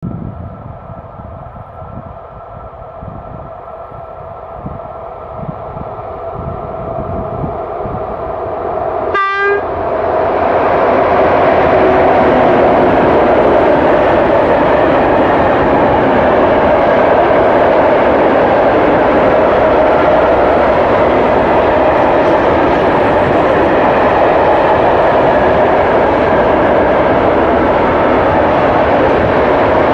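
A PKP ET22 electric freight locomotive approaching with a steady hum that grows louder. A brief sharp sound comes as it passes, about nine seconds in. Then a train of open freight wagons (Eaos and Eas types) rolls past with a loud, steady rumble of wheels on rail.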